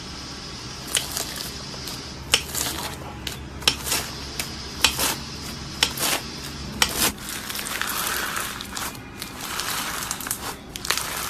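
Slime being squeezed and worked by hand, with a series of sharp crackling pops for the first several seconds, then a denser crinkling sound.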